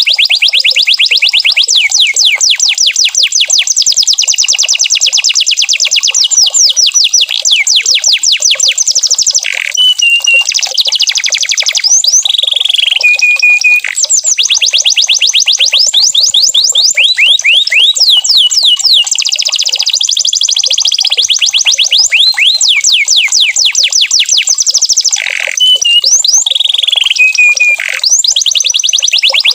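Canary singing continuously: long, very fast trills of repeated downward-sweeping notes, broken twice by short held whistled notes.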